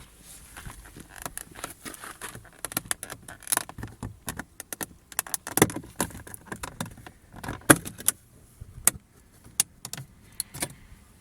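Plastic and metal clicks, knocks and rattles as a Lada Vesta door handle is taken off the door, a string of sharp irregular clicks with a couple of louder knocks in the middle.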